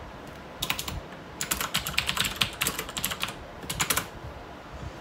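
Computer keyboard typing: quick runs of key clicks, a short one under a second in, a longer run from about one and a half to three and a quarter seconds, and a last short run near four seconds.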